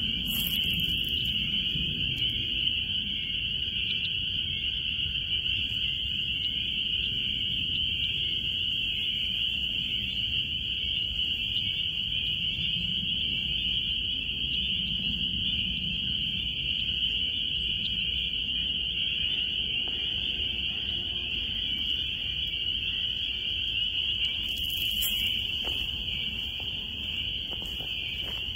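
A frog chorus: a steady, high-pitched, unbroken drone of many calling frogs, with footsteps rustling through dry leaves underneath.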